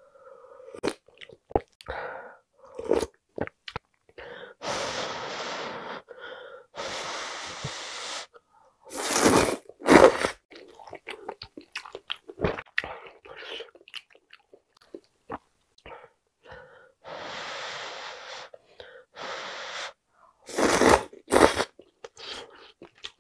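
Close-miked eating of boneless beef rib soup with glass noodles: sipping and slurping the broth, with wet chewing clicks and smacks in between. There are several longer slurps of a second or so, and a few louder bursts in the middle and near the end.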